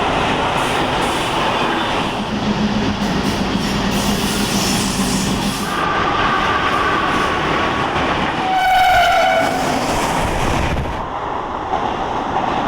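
Train running through a station at speed, with a loud steady rumble and rattle of wheels on rails. About two-thirds of the way through, the train's horn sounds one blast of about a second, dropping slightly in pitch.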